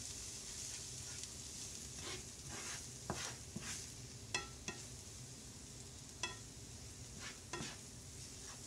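Vegetables sizzling in a nonstick skillet while a slotted spatula stirs them, the spatula clicking against the pan a few times. The mix is sautéed pepper, celery, onion and spinach with mayonnaise and flour.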